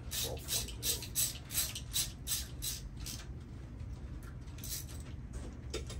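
Hand socket ratchet clicking on the back-swings while a bolt on the engine is run in, about three strokes a second at first, then slower and fainter in the second half.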